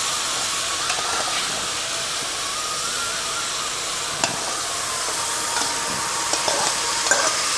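A kadai of thickened tamarind liquid sizzling steadily over the flame as boiled, spice-marinated taro root (colocasia) pieces are added to it. There is a single sharp tap about four seconds in.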